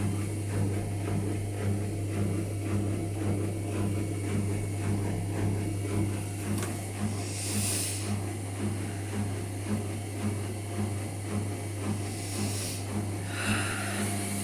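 Hotpoint Ariston ARSL100 washing machine running: a steady low hum with a rhythmic pulse about twice a second, and two short hisses, one about halfway through and one near the end.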